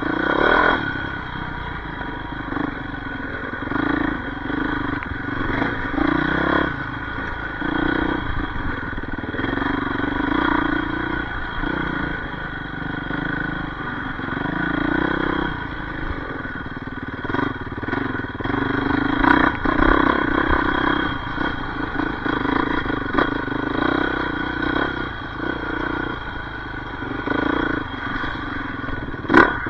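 Yamaha YZ450F four-stroke single-cylinder dirt bike engine being ridden off-road, the throttle opening and closing every couple of seconds. A few sharp knocks come near the end.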